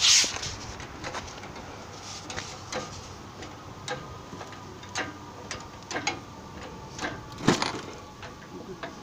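Irregular metallic clicks and clanks from a chain hoist and its chain as the engine is being raised, with a louder clunk about seven and a half seconds in.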